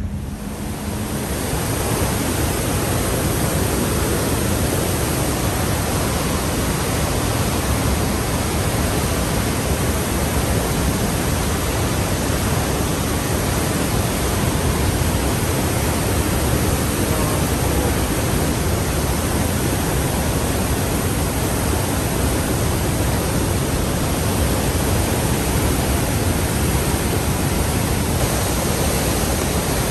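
Swollen river in flood rushing past: a steady, full rush of fast-moving water that builds over the first couple of seconds and then holds.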